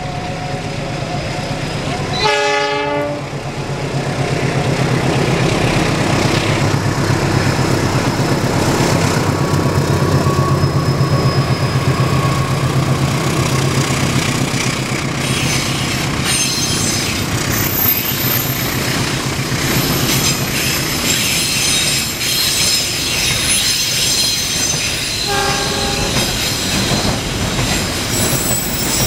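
A diesel locomotive sounds a short horn blast about two seconds in, then its engine rumbles steadily past. A long container freight train follows, its wagons rolling and clattering over the rails with high-pitched wheel squeal.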